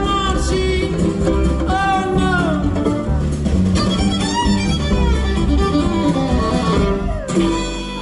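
Live band music with violin, acoustic guitar, upright bass and drums. The violin plays sliding phrases over the band. Near the end the band stops sharply on a final note, leaving a low note ringing as the song ends.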